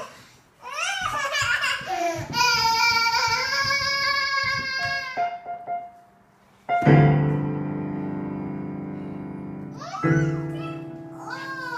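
A small child's high-pitched voice, drawn out and wavering, for the first few seconds. Then a cluster of piano keys is struck hard together, ringing and slowly dying away, and struck again about three seconds later.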